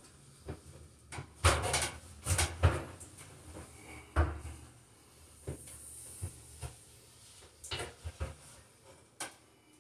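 A series of irregular knocks and clunks from things being handled and set down, the loudest in a cluster over the first few seconds and smaller ones after.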